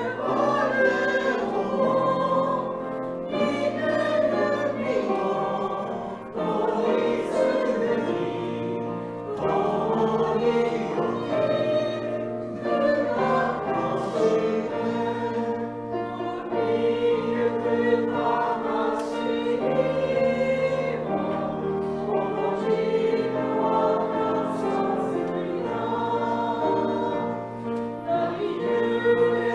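A hymn sung in Japanese by a small group of voices in parts, accompanied by piano and electronic keyboard.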